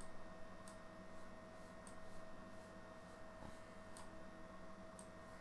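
Quiet room tone with a steady electrical hum and a few faint, sharp ticks about a second apart.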